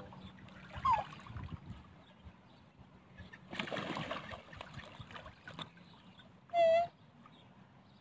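Calls and splashing from a flock of black swans and Eurasian coots crowding at the water's edge: a short falling call about a second in, water splashing around the middle, and one loud, clear call a little before the end.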